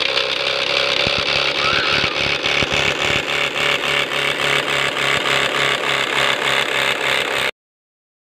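Homemade plastic-bottle bicycle 'exhaust' on the rear wheel, rattling as the wheel turns: a loud, rapid buzz with a regular pulse, meant to sound like a motorbike exhaust. It cuts off suddenly about seven and a half seconds in.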